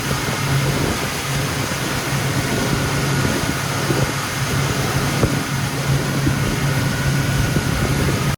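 A steady engine hum under a loud, even rushing noise, like a vehicle running at speed.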